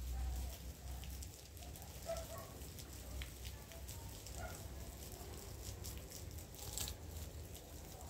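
Water from a garden hose spraying and pattering down onto leafy shrubs and soil, a soft steady spatter.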